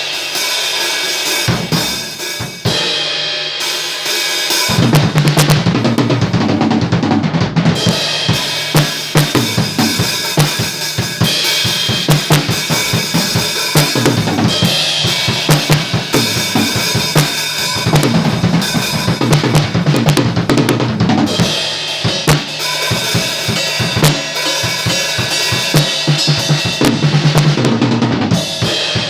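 RMV Crossroad acoustic drum kit being played: bass drum, snare and cymbals in a continuous groove. The beat gets fuller, with heavier bass drum, from about five seconds in.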